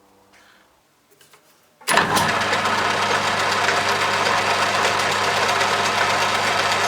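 A few faint clicks, then a metal lathe is switched on about two seconds in and runs steadily with a low hum and a whir.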